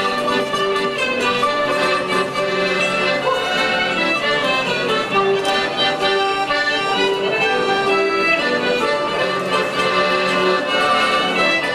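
A Finnish folk dance tune played live by a small band of fiddles and accordion, going on steadily without a break.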